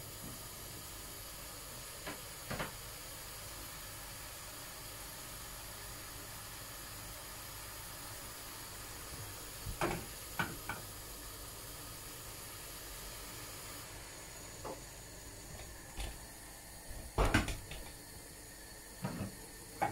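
Faint steady hiss of a saucepan of strawberries in sugar syrup simmering on a gas burner, broken by a few light knocks and clinks of kitchen utensils and cookware.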